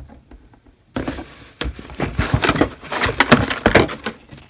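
Packaging rustling and crinkling in a dense, irregular run as items are handled and pulled from the box, starting about a second in.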